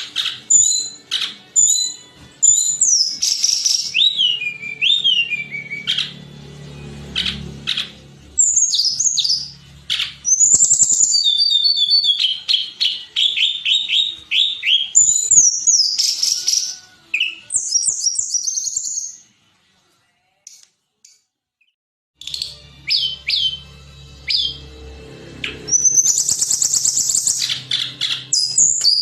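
Tledekan gunung songbird singing: quick runs of high, sliding whistled notes, trills and chirps, with a pause of about two seconds about two-thirds of the way through.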